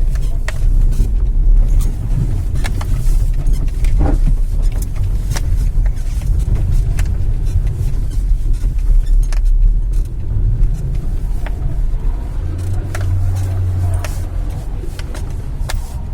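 Small car driving slowly over a thick sheet of ice on Debica Frigo 2 winter tyres, heard from inside the cabin: a steady low engine and tyre rumble with scattered sharp clicks and knocks. A steadier engine hum holds for a moment near the end.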